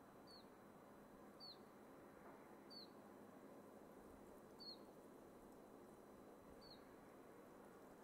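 Soft, steady rush of wind through pine trees, with a small bird giving a short, high, slightly falling chirp five times, every second or two.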